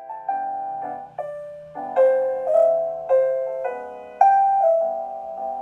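Slow piano music: a melody of struck notes, each fading away, about one or two a second, over soft lower notes.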